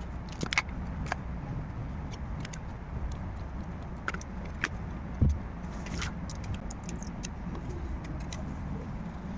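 Scattered small clicks and taps of tools and parts being handled on a phone under repair, the sharpest about half a second and five seconds in, over a steady low rumble.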